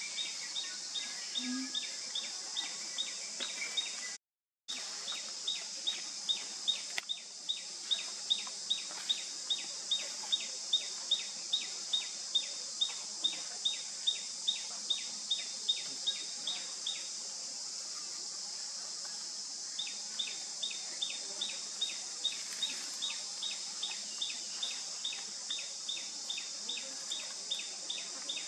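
Outdoor forest ambience: a steady high-pitched insect drone with a sharp chirp repeated two to three times a second, which stops for a few seconds past the middle and then resumes. The sound cuts out for about half a second around four seconds in.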